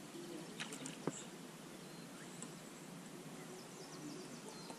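Quiet riverside ambience: a steady soft hiss with faint high bird chirps, broken by a few sharp clicks about a second in.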